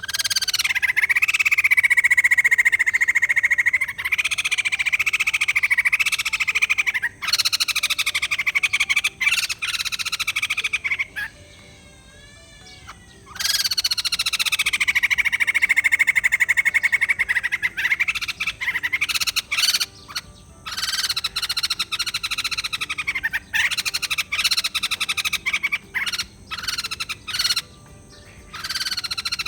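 White-crested laughingthrush (poksai jambul) calling in long bouts of fast, rattling, cackling laughter, each lasting several seconds with short breaks between. This is the loud, chattering 'gacor' singing of a bird in full voice.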